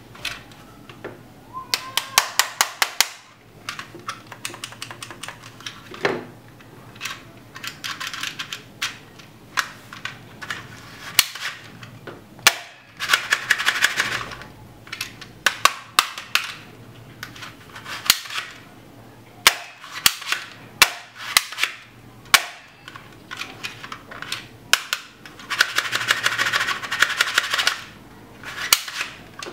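Toy guns firing: many sharp single shots, with several bursts of rapid-fire clicking lasting a second or two each.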